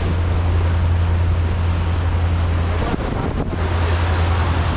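Fishing boat's engine running with a steady low drone, under a hiss of wind on the microphone and rushing water. A couple of faint knocks about three seconds in.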